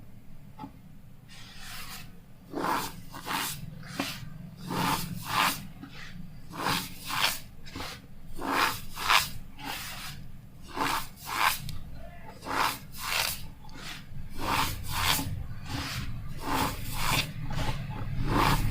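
Cornstarch squeezed and pressed by hand, giving a squeaky crunch again and again, about one to two a second, starting about two seconds in.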